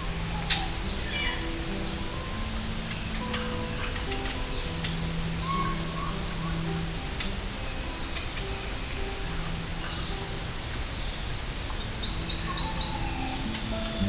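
Steady, high-pitched insect chorus of crickets, with many short descending bird chirps scattered through it and soft, low held notes of music beneath. A single sharp click sounds about half a second in.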